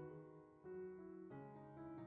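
Soft background piano music, with new notes coming in about every half second.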